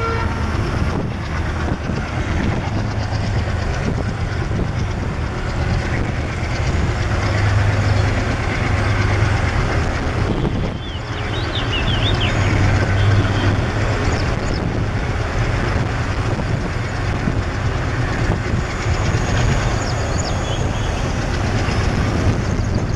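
ALCo diesel locomotive running with its train, a steady low engine drone over the noise of wheels on the rails, with a few faint short squeals about halfway through.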